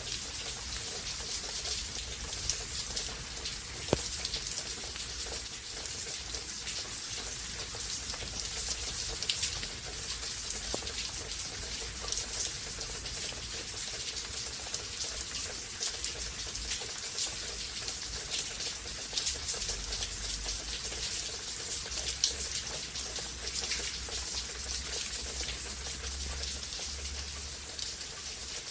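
Steady rain falling, a constant hiss with many fine, close drop ticks and an occasional louder single drip.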